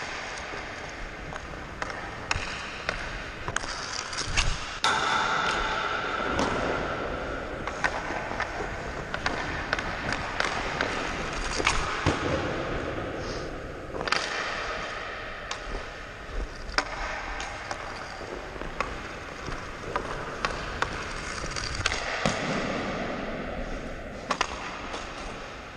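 Ice hockey skates carving and scraping across the ice, a rushing hiss that swells and fades with each stride and turn, broken by sharp clacks of the stick on the puck and ice.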